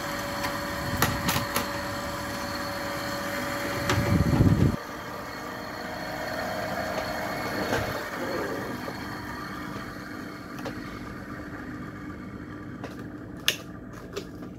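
Mitsubishi FR-D700-series variable frequency drive powered up, its cooling fan humming steadily while its 24 V DC relay clicks on and off several times in the first few seconds. The relay chattering is the fault: it will not stay pulled in. About five seconds in, the hum drops sharply and a few clicks follow.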